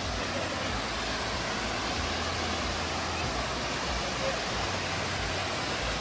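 Waterfall: a steady rush of falling water, an even hiss with a low rumble underneath.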